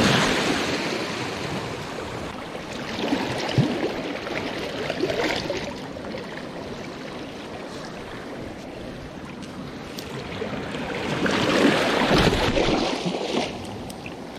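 Small sea waves washing and foaming over shoreline rocks, swelling near the start and again about eleven seconds in.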